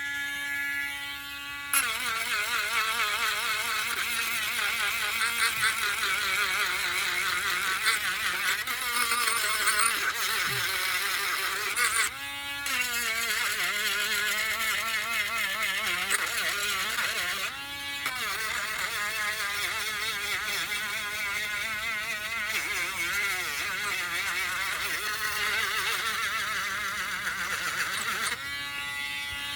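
Small electric sanding tool whirring under load, its pitch wavering as it is pressed to the work. It starts up about two seconds in and has two brief breaks.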